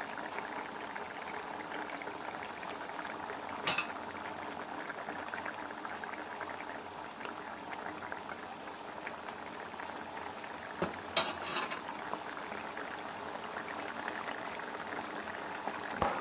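Thick mustard-paste curry of ribbonfish and eggplant simmering in a frying pan, bubbling steadily. A metal spatula knocks against the pan a few times.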